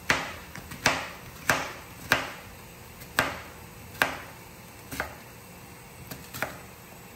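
Chef's knife chopping a red onion into large cubes on a cutting board: about eight sharp knocks of the blade hitting the board, unevenly spaced at roughly one a second, with a few fainter cuts between them.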